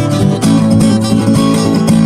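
Guitar music: plucked and strummed guitar notes played over sustained low bass notes.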